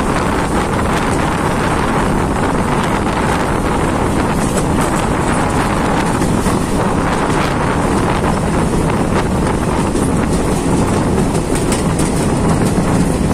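Passenger train coach running along the track: a steady rumble of wheels on rails with faint clatter.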